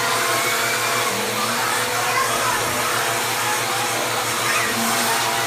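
Vacuum cleaner running steadily with an even hum, being used to suck loose hair off.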